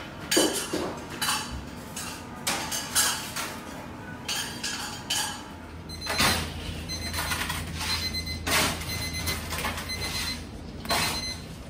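Repeated clinks and knocks of baking moulds and a metal sheet pan being handled. A low steady hum joins about six seconds in.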